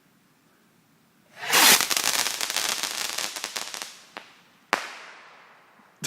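Backyard consumer firework going off: about a second and a half in, a sudden loud burst of dense crackling that fades over a couple of seconds, then one sharp snap near the end.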